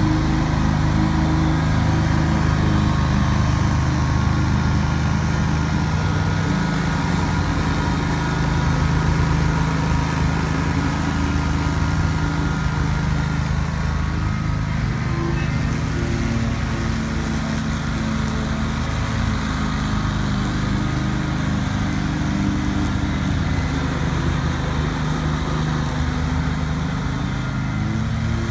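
2003 Great Dane 52-inch stand-on mower's engine running steadily at full throttle while its blades cut through tall, thick grass, working hard under load. Loudness dips a little in the middle and rises again near the end.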